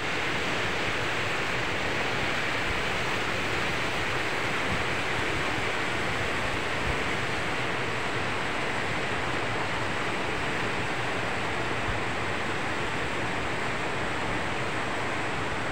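Swift river current rushing over rocks in shallow rapids: a steady, even rush of water.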